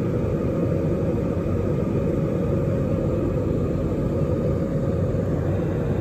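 Jet airliner cabin noise in flight, heard from a window seat: a steady, loud rumble of the engines and the airflow past the fuselage, with a fainter hiss above it.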